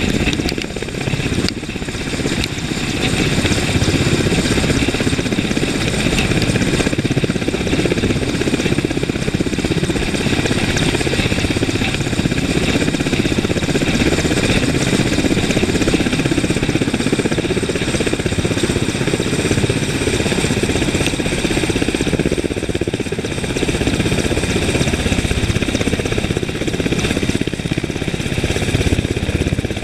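Mil Mi-8 helicopter's twin turboshaft engines and main rotor running loud and steady as it hovers low and settles onto the ground, a steady high turbine whine over heavy rotor noise.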